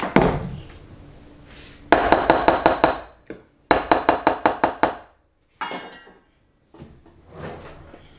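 An immersion blender set down with a knock on a wooden counter, then a spoon clinking against a glass mixing bowl in two quick runs of strokes, about eight a second, as the blended tomato sofrito is stirred.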